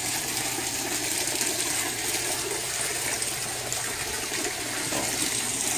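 Water running and splashing steadily through an aquaponics system's tanks and PVC pipes, with a faint low hum beneath.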